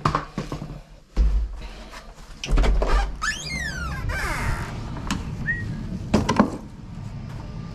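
Thumps and knocks as a front door is opened and a toolbox is carried out through it, with a short falling squeal about three seconds in.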